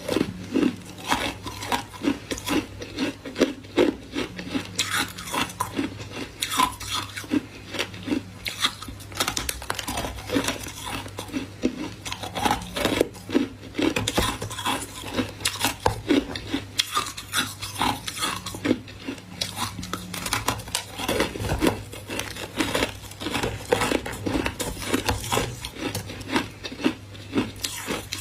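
A person biting and chewing freezer frost close to the microphone: rapid, irregular crunching, several crunches a second, with a steady low hum underneath.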